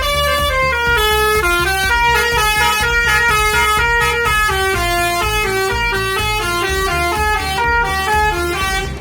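Tour bus 'telolet' multi-tone air horn playing a quick melody of short stepped notes, loud, over the low rumble of the bus engine.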